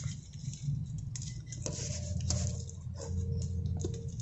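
Banana leaf crinkling and rustling in the hands as it is folded and pressed into the open end of a bamboo tube to seal it, a run of small crackles over a steady low rumble.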